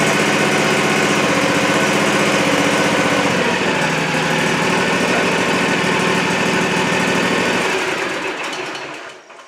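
Kawasaki FR691V V-twin engine on a Cub Cadet ZT250 zero-turn mower running steadily just after an oil change, circulating the fresh oil through the filter. Near the end it is switched off and runs down to a stop.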